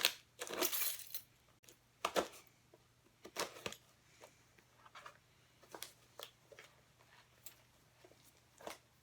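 A box being handled and opened by hand: irregular rustles, scrapes and taps. The loudest is a longer rustle near the start, with another sharp one about two seconds in.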